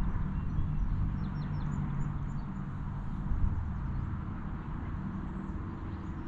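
Steady low outdoor rumble, with a few faint high bird chirps in the first couple of seconds.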